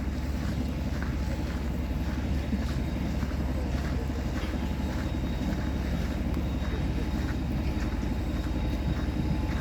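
Steady low rumble of a jet airliner's engines with a faint thin high whine, under scattered light clicks.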